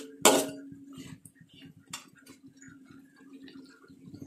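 Metal spatula stirring duck pieces in sauce in a steel wok: a loud clank against the pan just after the start, a lighter tap about two seconds in, and soft scraping and ticks, over a steady low hum.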